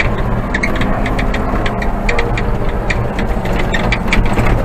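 Old Manitou telehandler's diesel engine running steadily, with many short rattles and clicks over its low drone.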